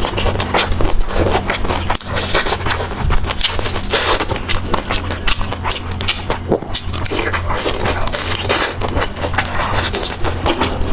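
Close-miked chewing and crunching of crispy fried skewered snacks: dense, irregular crackles and clicks over a steady low hum.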